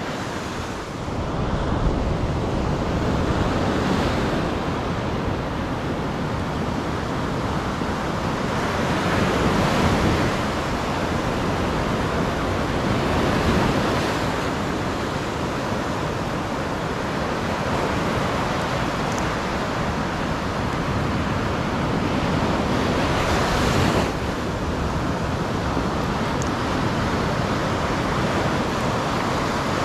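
Sea surf washing in, swelling and easing several times, with wind buffeting the microphone.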